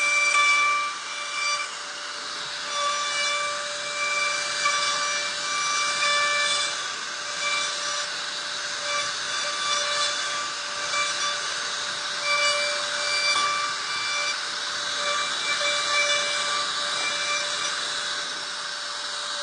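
CNC router spindle cutting: a steady high whine with overtones that drop in and out, over a continuous rasping cutting noise.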